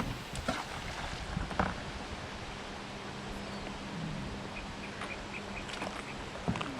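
Moving river water around a kayak, with a few paddle splashes and knocks and a short run of high chirps about five seconds in.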